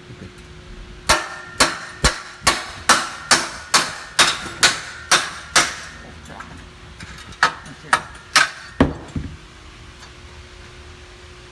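Hammer striking metal, knocking on the ergometer's main drive shaft bearing: a run of about eleven sharp, ringing blows at roughly two a second, then after a short pause four more blows, the last one heavier and duller.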